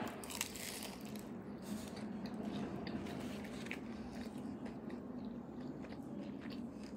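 Close-miked mouth sounds of a person biting into and chewing a shredded-pork (pernil) empanada: a bite with sharp clicks near the start, then steady chewing with scattered small clicks.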